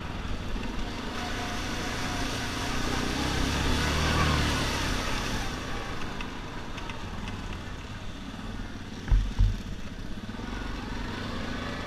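Yamaha Grizzly 700 ATV's single-cylinder engine running, building up to a peak about four seconds in and then easing off. Two short low thumps come just after nine seconds.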